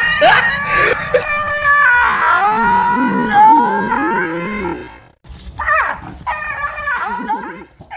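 A dog barking rapidly, then snarling and growling with a wavering pitch as it bites and tugs at a stuffed toy tiger on a pole. After a brief break about five seconds in, it barks again.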